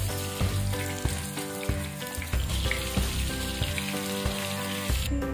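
Oil sizzling steadily around wonton-skin-wrapped mini martabak parcels shallow-frying in a non-stick pan, with background music under it. The sizzle cuts off just before the end.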